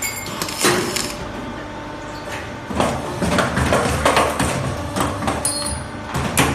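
An automatic double J hook bending and welding machine running, with repeated metallic knocks and clanks over a steady low motor hum as steel wire is fed, bent and welded. A brief high-pitched squeal comes about five and a half seconds in.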